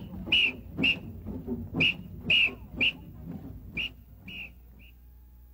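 A whistle blown in short, shrill blasts, about nine of them roughly half a second apart, over crowd noise. The blasts fade out near the end.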